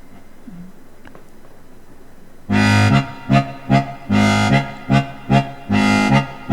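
A quiet stretch, then about two and a half seconds in a loud music track cuts in abruptly: long reedy, accordion-like chords alternating with short punchy stabs over heavy bass.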